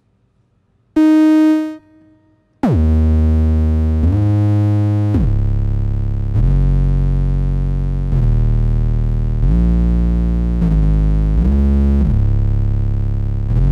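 Synth bass preset 'Drop The Bass' from the Alliance Kontakt library, played live on a keyboard: a single short note about a second in, then a slow line of long, low held notes, each gliding smoothly up or down in pitch into the next.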